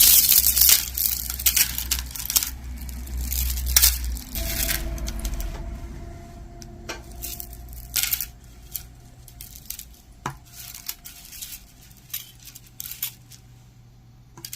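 Small metal and plastic costume-jewelry pieces clicking and clinking as they are handled and picked through. The clicks are loudest and busiest about the first second and thin out toward the end.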